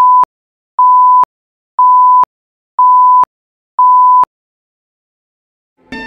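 Countdown-leader beeps: a steady single-pitch tone sounding once a second, five times, each about half a second long. After a short silence, music comes in just at the end.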